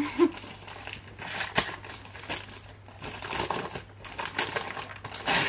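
Gift wrapping paper crinkling and rustling in irregular crackles as a small present is unwrapped by hand, loudest near the end.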